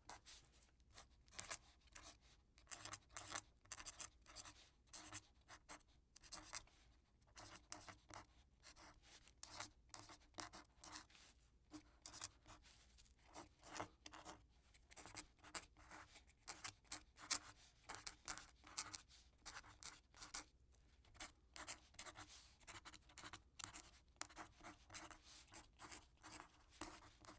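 Quill pen scratching across paper in short, irregular strokes, several a second, with brief pauses between runs of writing.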